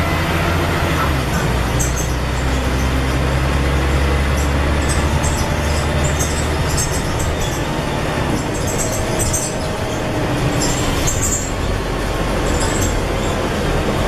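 Scania N113 bus's diesel engine running under load, heard from inside the bus, with short high rattles from the bodywork throughout. The engine is strong for the first six seconds or so, then eases off.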